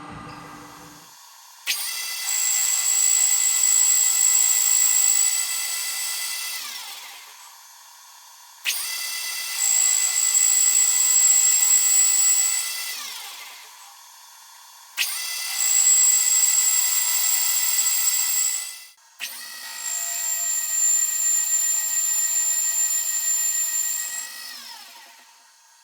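A high-speed electric power tool motor started four times. Each time it runs at a steady high whine for several seconds, then is switched off and its pitch falls as it coasts down. The last two runs are split only by a momentary cut.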